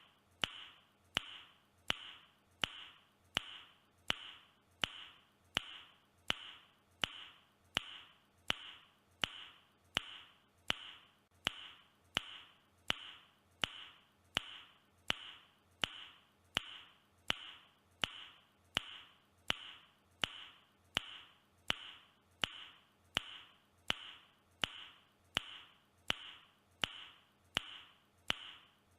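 A man's mouth click repeated over and over, about three clicks every two seconds at an unchanging rhythm, each a sharp click trailed by a brief hiss.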